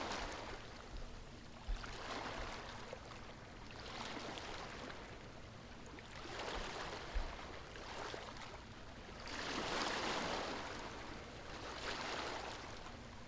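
Ocean surf washing on a shore, the wash swelling and fading every two seconds or so, the biggest surge about ten seconds in.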